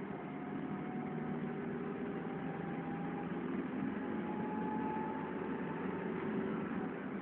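Toyota pickup heard from inside the cab as it rolls along the road in neutral gear: a steady hum of engine and road noise, with a faint whine slowly rising in pitch.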